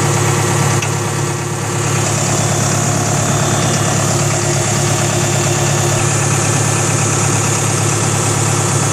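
Caterpillar E110B excavator's Mitsubishi diesel engine idling steadily, heard close by with the main hydraulic pump compartment open.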